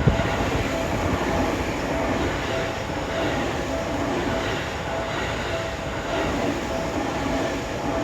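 A Seibu Ikebukuro Line electric train runs past a level crossing with a steady rumble of wheels on rail. Over it, the crossing warning bell keeps ringing in even pulses.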